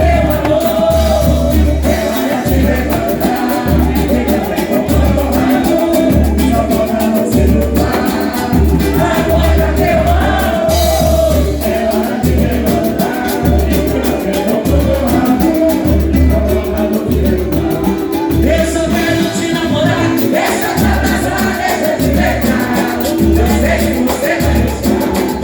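A live samba band playing, with singing over a pulsing bass line and percussion.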